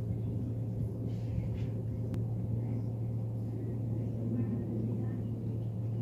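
Boeing 757-200 jet airliner passing high overhead, heard as a steady low rumble with a faint steady hum.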